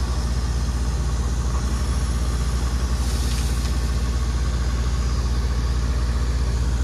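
Engine of a water-well drilling rig running steadily at a constant speed, with a fast, even pulse, as the well casing is being cleaned. A brief hiss comes about three seconds in.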